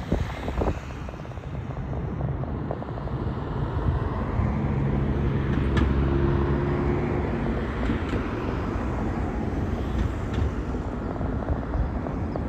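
Steady low rumble of distant engine noise, with an engine hum rising out of it for a few seconds around the middle and a few faint clicks.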